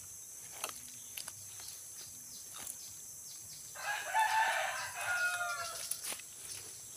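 A rooster crowing once, starting about four seconds in and lasting about two seconds, its pitch falling away at the end, over a steady high hiss.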